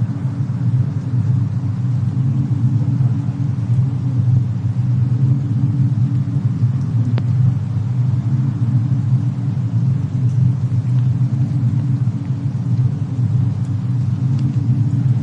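Fireplace-and-snowstorm ambience: a steady low rumble with a few faint crackles and one sharp pop about seven seconds in.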